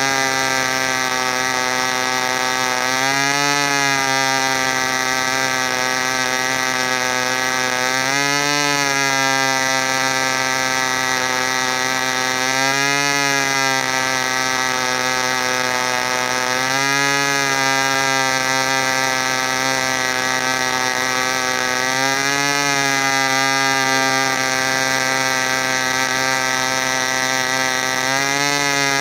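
Super Tigre glow-plug model airplane engine running on a test stand with a high, buzzing note, its pitch surging up and settling back about every four to five seconds.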